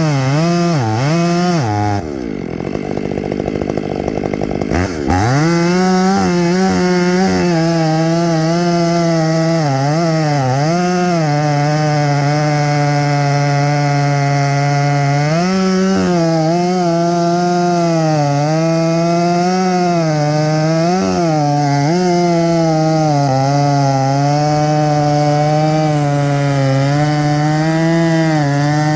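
Stihl chainsaw cutting down a poplar stump, its engine pitch dipping as the chain bogs in the wood and rising again as it clears. About two seconds in it drops briefly to a rough, lower running, then revs back up at about five seconds and carries on cutting.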